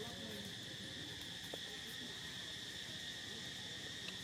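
Insects droning steadily in the background, a constant high, even buzz that does not change.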